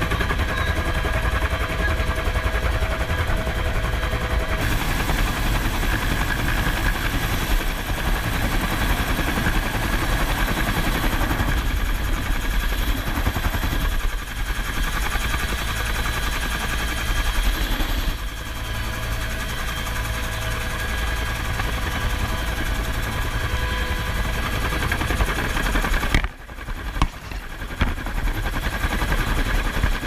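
Hovering military helicopter heard from just below it on the rescue hoist: a steady, loud rotor chop and turbine whine with downwash blowing past. The noise drops briefly and spikes a few times near the end.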